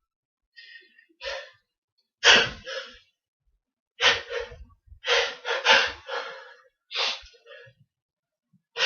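A person with a cold taking short, sharp gasping breaths in clusters of two or three, the build-up to a sneeze that has not yet come.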